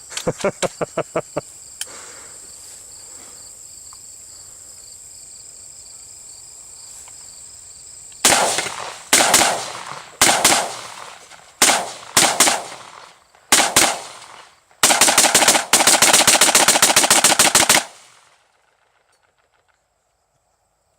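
AR-15 rifle firing .223 rounds: seven single shots about a second apart from partway in, then a fast string of shots lasting about three seconds, each shot ringing out. Before the shooting, insects chirp steadily, and at the very start there is a quick run of clicks.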